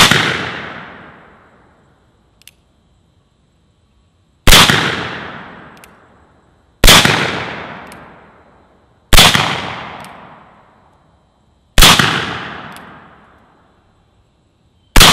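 Six shots from a .44 caliber replica Colt 1851 Navy cap-and-ball revolver loaded with black powder, fired one at a time about two to four seconds apart, each a sharp report with a long fading echo. Faint clicks come between some shots as the single-action hammer is cocked.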